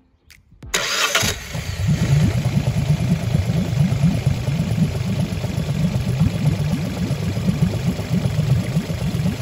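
Suzuki DF60A four-stroke three-cylinder outboard motor starting up about a second in, then running steadily with a fast low pulsing.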